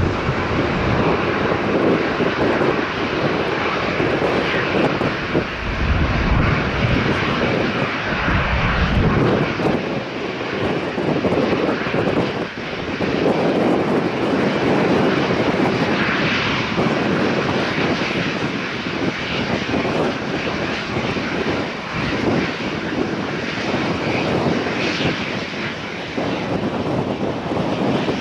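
Jet airliner engines running loud and steady, a continuous rushing roar that swells and eases. Gusts of wind buffet the microphone with low rumbles near the start and again a few seconds later.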